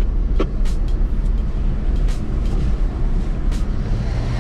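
Off-road 4x4 heard from inside the cabin, crawling over rough track: a steady low rumble from the engine and drivetrain, with several sharp knocks and rattles as the vehicle jolts.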